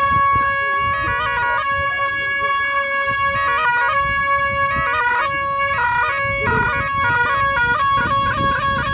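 A pair of gyaling, Tibetan ritual oboes, playing together: a steady, reedy held note with repeated runs of quick stepped ornaments above it.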